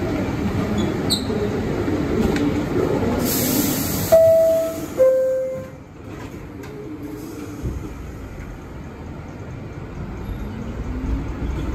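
NYC subway R62A car: a short hiss, then the two-note descending door chime about four seconds in, signalling the doors are closing. After the chime it goes quieter, then the low rumble returns and a slowly rising whine begins as the train pulls away.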